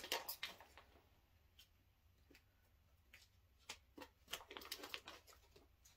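Scissors snipping into a tightly packed plastic mailer bag, with faint crinkling of the plastic: a few soft snips and rustles near the start, a quiet stretch, then more from about the middle on.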